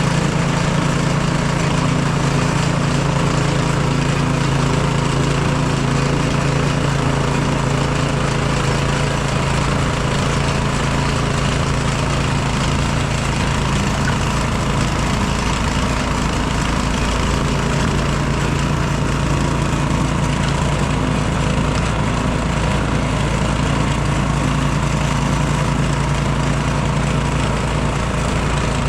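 Craftsman snowblower's small gasoline engine running steadily at a constant speed, with an even hum.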